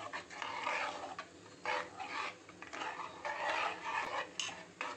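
Steel ladle stirring thin, watery curry in an aluminium pressure pan: a run of short swishing strokes with the metal scraping against the pot, and a couple of sharper clinks near the end.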